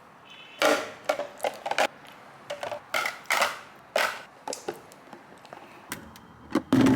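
A series of irregular sharp clicks and knocks, a dozen or so, spaced unevenly, the loudest near the end.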